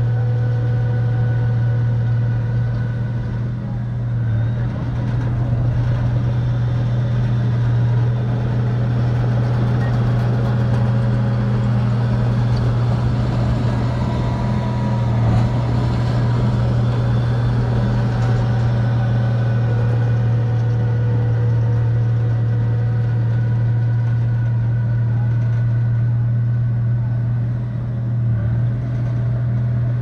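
Crawler bulldozer's diesel engine running steadily with a deep, constant hum, dipping briefly about four seconds in and again near the end.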